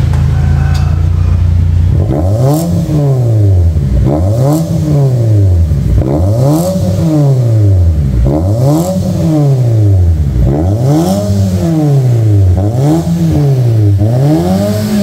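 Nissan Livina engine idling, then revved up and let fall back about seven times, each blip taking about two seconds. It breathes through a newly fitted HKS 'full ngebass' stainless muffler with a custom oversized canister and the stock resonator kept, a setup meant for a deep bass note.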